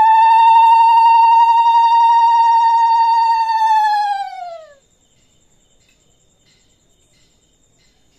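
A conch shell (shankha) blown in one long, steady note, its pitch sagging as the breath runs out and stopping a little under five seconds in.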